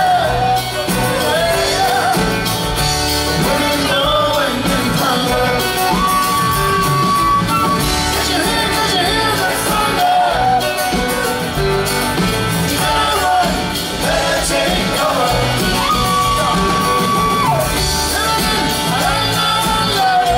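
Live rock band playing, with singing.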